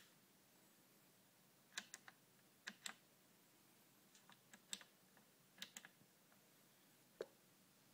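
Push buttons on the front panel of a Technics SL-P1200 CD player clicking as they are pressed and released: short, sharp clicks in small clusters of two or three, about a dozen in all, with the last single click near the end.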